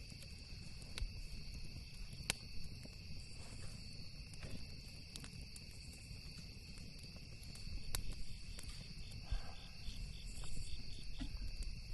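Campfire crackling with a few sharp pops, over steady cricket trilling and a low rumble.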